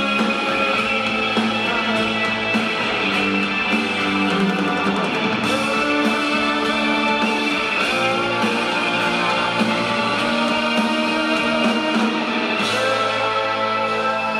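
A live rock band playing electric guitars and drums: a full, steady wash of guitar chords over a drum kit.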